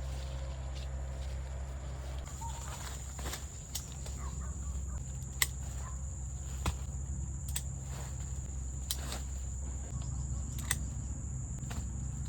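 Farmyard chickens clucking faintly over a steady low rumble, with a thin high steady tone starting about two seconds in and several sharp clicks scattered through.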